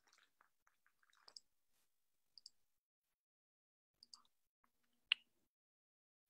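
Near silence broken by faint, scattered computer mouse clicks: a close pair about two and a half seconds in and one sharper click about five seconds in.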